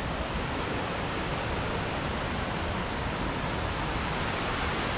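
Waterfall's water rushing steadily, an even hiss.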